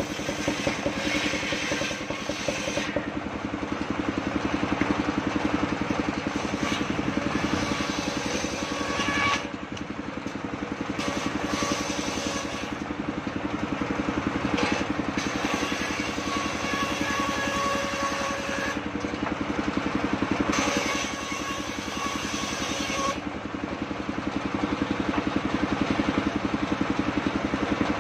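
Large engine-driven circular saw blade ripping a green log lengthwise. The engine runs steadily the whole time, and the blade's rasping whine rises over it in several stretches of cutting, with short gaps where only the engine runs.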